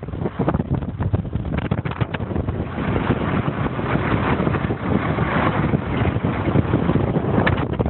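Wind rushing over the microphone together with the road noise of a moving vehicle. The rush grows stronger about three seconds in.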